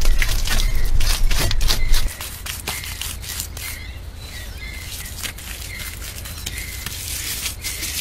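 Wet mud mixed with straw being handled and packed, a stream of crackly, squelchy clicks. A short chirp repeats about once a second, and a low rumble cuts off about two seconds in.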